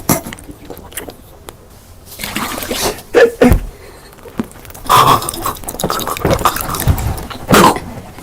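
Close-miked eating: wet chewing, bites and slurps in separate loud bursts.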